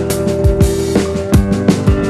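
Background music with a drum beat, deep bass-drum thuds and held instrumental tones.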